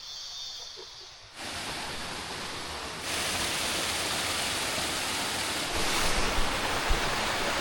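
Steady rushing of flowing water, like a jungle stream or cascade, coming in about a second in and growing louder about three seconds in.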